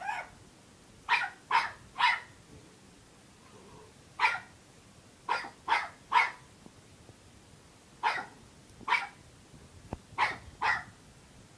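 Puppy barking in short, sharp, high-pitched yaps, about a dozen of them, mostly in twos and threes with brief pauses between. It is an unhappy puppy's demand barking, wanting someone to play with it.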